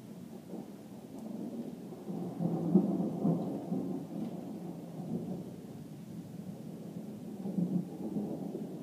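Thunder rumbling, swelling loudest a couple of seconds in, dying down, then swelling again near the end.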